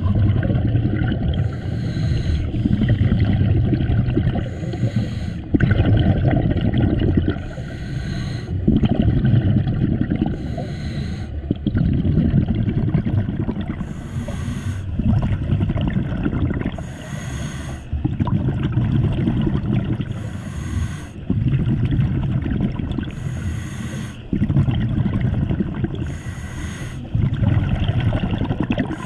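Scuba diver breathing underwater through a regulator in a steady rhythm, about every three seconds: a hiss with each breath drawn, alternating with a low rumble of exhaled bubbles.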